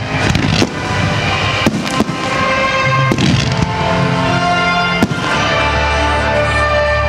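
Fireworks going off in a series of sharp bangs and crackles at uneven intervals, over music with sustained chords.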